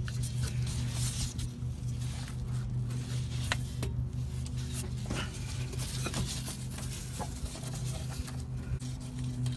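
Scattered small clicks and handling noises as a capped fuel line is pushed onto its fitting and zip-tied, including the ratchet of a zip tie, over a steady low hum.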